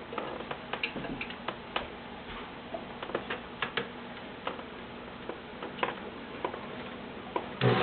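Scattered, irregular light clicks and taps as a Kenmore 1813 sewing machine's controls and the leather under it are handled. The machine starts sewing abruptly just before the end.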